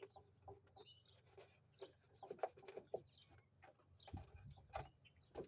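Faint, scattered clicks and knocks of wiring being handled and fed through a truck's engine bay, with a few faint bird chirps.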